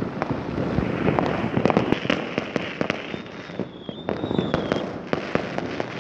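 Fireworks and firecrackers going off around the neighbourhood: a constant, irregular run of bangs and crackling pops, with a thin high whistle lasting over a second about three seconds in.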